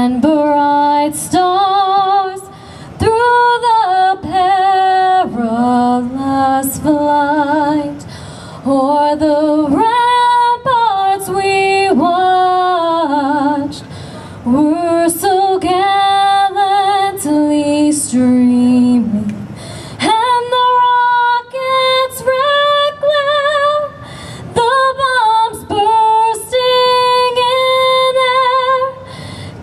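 A woman singing solo and unaccompanied, in phrases of long held notes with vibrato and short pauses between them.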